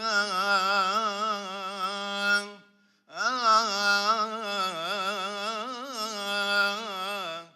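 A solo male voice chanting a long melismatic phrase of a Coptic psalm tune, unaccompanied, its melody wavering with heavy vibrato. It breaks off briefly about three seconds in, then sings a second, longer held phrase.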